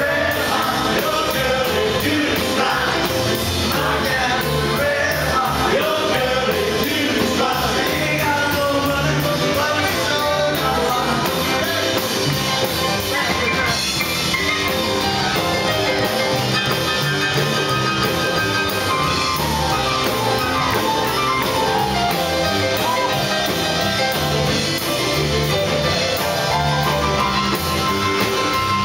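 Live rockabilly band playing a rock and roll number: drum kit keeping a fast steady beat, with piano and a male singer.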